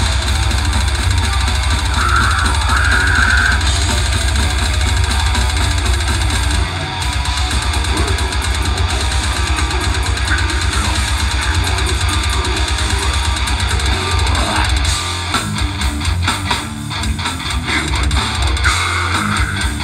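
A goregrind band playing live and loud: heavily distorted electric guitar and bass over a drum kit, with a vocalist growling into the microphone.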